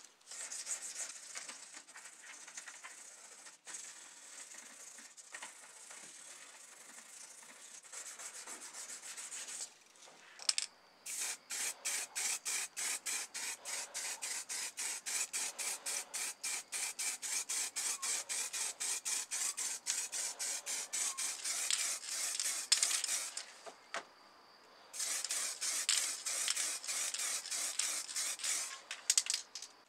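Hand sanding of a die-cast model car body: a steady rubbing hiss at first, then after a short break faster back-and-forth rasping strokes, about five a second, with one brief pause near the end.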